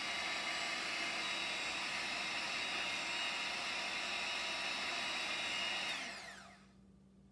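Electric hand mixer running steadily with a motor whine as its beater stirs thick paint in a small cup, then switched off near the end, its pitch falling as the motor winds down.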